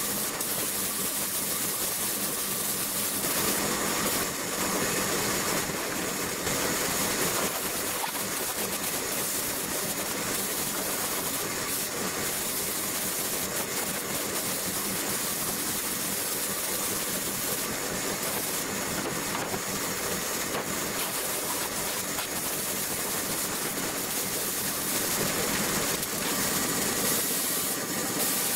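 Gravity-feed air spray gun with a 1.5 mm nozzle hissing steadily as it sprays epoxy primer onto sheet-metal car body panels.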